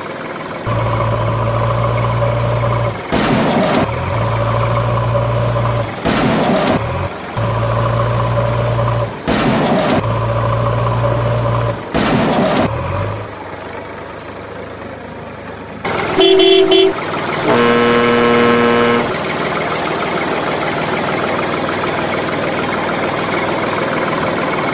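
Heavy truck engine sound running steadily, breaking off briefly every three seconds or so. About sixteen seconds in come a short horn toot and then a longer, lower horn blast, with a thin high whine going on after them.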